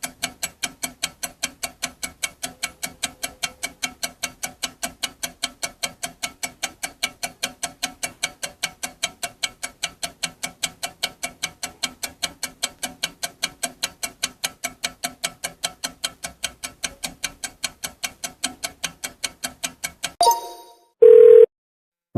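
Steady clock-like ticking, about four sharp ticks a second, that stops near the end. A short loud beep follows.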